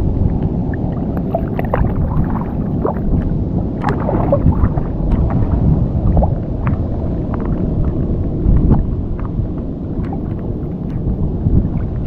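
Strong wind buffeting the microphone in a loud, uneven rumble, with scattered small splashes and ticks of water.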